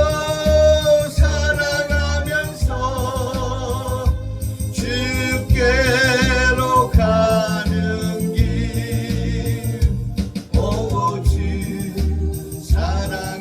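Korean gospel hymn sung over a backing track with a steady bass beat, with long notes held with vibrato.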